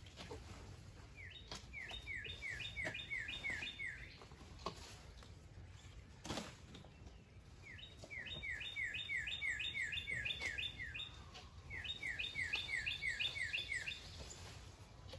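A songbird singing three bouts of quick, repeated downslurred notes, about three a second, each bout lasting two to three seconds. A few sharp clicks sound between the bouts.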